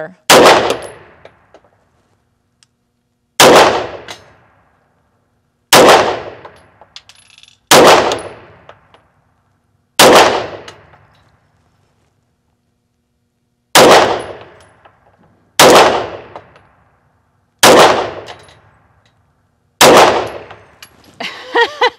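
Nine single shots from a Grand Power X-Calibur 9mm pistol, fired at a slow, deliberate pace about two seconds apart with a longer pause near the middle. Each shot is followed by a short reverberant tail in an indoor shooting bay.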